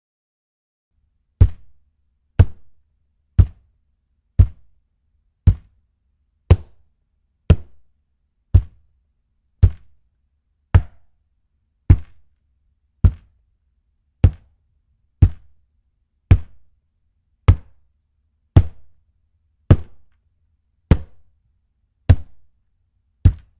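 A hand punching a plastic surface, giving deep hollow thunks: about twenty single hits, evenly spaced roughly one a second, each dying away quickly.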